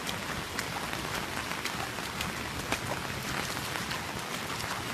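Rain falling on pavement and standing water: an even hiss with scattered sharp drop ticks.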